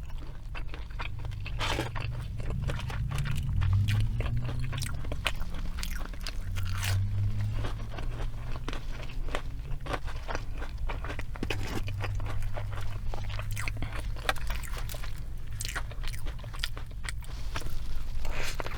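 Close-miked chewing of breaded Burger King chicken nuggets: many small crisp crunches of the breading throughout, over a low steady hum.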